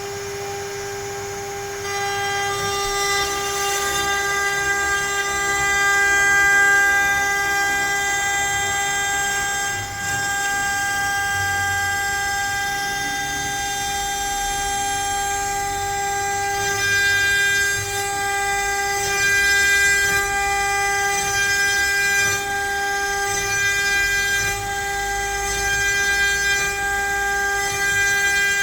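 CNC router spindle whining steadily while the bit cuts letters into pine wood. About two seconds in, a louder, higher whine joins the steady tone, and the cutting sound swells and dips in level as the bit moves through the wood.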